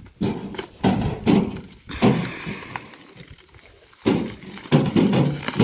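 A string of dull knocks and thumps from a home canning autoclave and its parts being handled and set down, with a short rustle about two seconds in.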